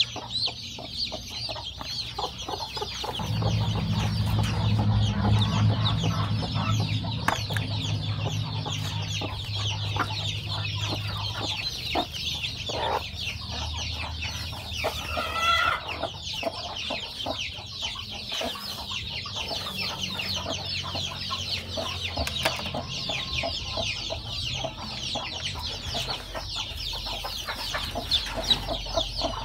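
Newly hatched chicks peeping continuously, many rapid high cheeps overlapping. A low steady hum comes in about three seconds in and fades out about twelve seconds in.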